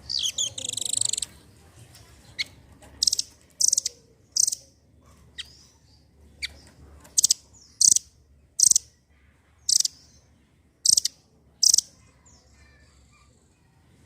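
Velvet-fronted nuthatch calling: a rapid, high trill at the start, then a string of about a dozen sharp, very high chip notes, each roughly a second apart or less.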